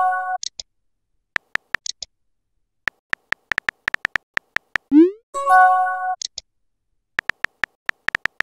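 Texting-app sound effects: runs of crisp phone-keyboard key clicks as a message is typed. About five seconds in, a quick rising whoosh marks the message being sent, followed by a short chord-like chime as it appears. A brief chime also sounds at the very start.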